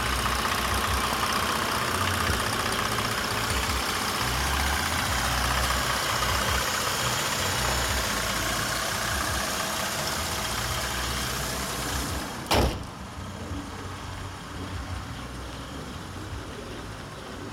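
Mercedes CLS 350's V6 engine idling steadily, heard close with the bonnet open. About twelve seconds in the bonnet is shut with one loud thump, after which the idle sounds quieter and duller.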